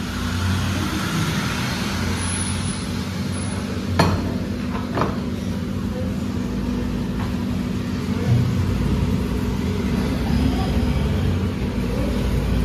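Steady low mechanical hum and rumble, with a sharp click about four seconds in and a couple of lighter knocks later.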